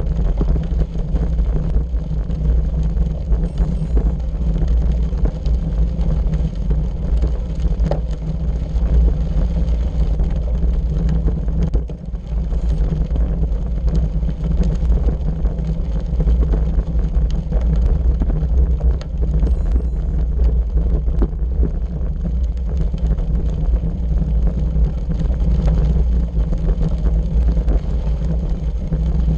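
Wind buffeting the microphone of a bike-mounted camera, over the steady crunch and rattle of bicycle tyres rolling on a gravel road.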